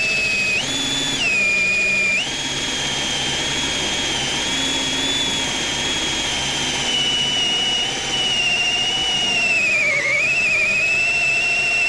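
Electric power tool cutting a hole for cords, its motor whining steadily at a high pitch. The pitch steps up and down a few times and sags briefly near the end, as the tool is loaded in the cut.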